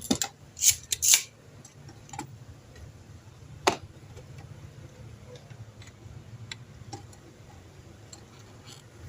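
Sharp clicks and snaps of tools and small parts being handled while a faulty part inside a water heater is being replaced. Three loud ones come in the first second and a half and another near four seconds, with faint ticks in between.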